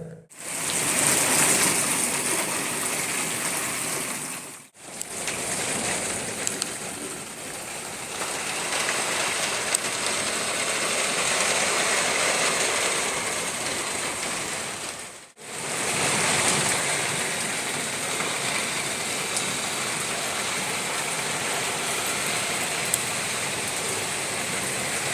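Heavy rain pouring down in a steady, dense hiss, with faint scattered drop ticks. It breaks off twice between shots.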